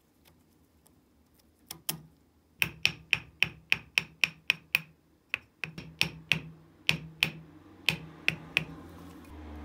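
Hammer blows on a wooden block, driving the end cap onto a ratcheting screwdriver's metal body held in a vise. Two taps, then quick sharp strikes about three a second in three runs with short pauses, each with a brief metallic ring.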